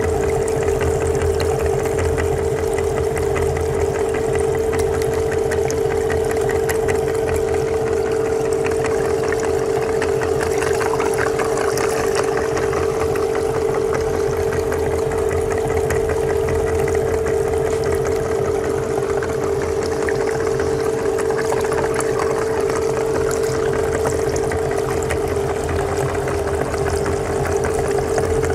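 Meat grinder running with a steady hum while jelly is forced out through its cutting plate, with a fine wet crackle over the hum.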